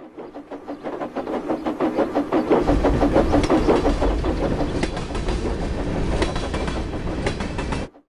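Dubbed steam train sound effect: a fast, even rhythmic beat that grows louder over the first two seconds, joined by a deep rumble about two and a half seconds in, with a few sharp clicks, then cut off abruptly just before the end.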